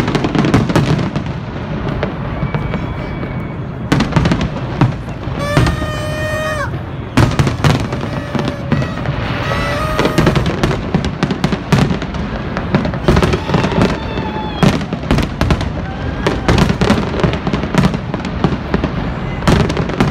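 Fireworks display: aerial shells bursting in quick succession, with dense crackling and many bangs close together, over music playing underneath.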